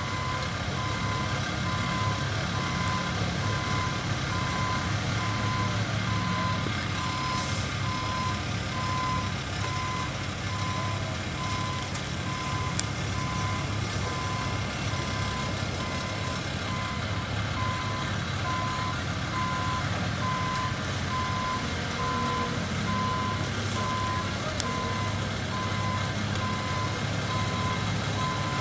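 Backup alarm of a heavy vehicle beeping steadily at one pitch, about one beep a second, over the low, steady running of a diesel engine.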